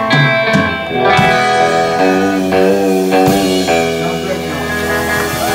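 Live country band playing the end of a song: electric and acoustic guitars, bass and drums strumming and holding chords that ring out, with a few sharp drum hits.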